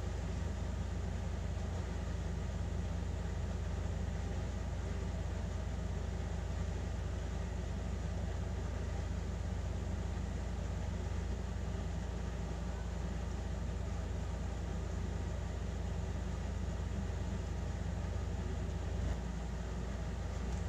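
Steady low rumbling background noise, unchanging throughout, with no distinct events.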